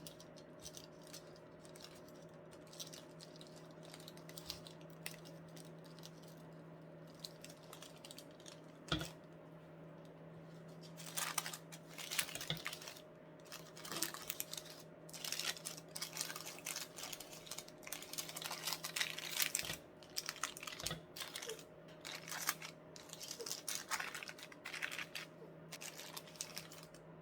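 Light, irregular clicking and scraping of kitchen utensils against a bowl during cake preparation, busier about halfway through, over a steady electrical hum.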